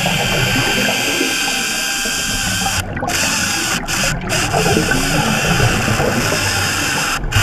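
Hydraulic chainsaw running underwater as it cuts into a wooden piling, heard through the water as a loud, steady mechanical whir with a few momentary gaps.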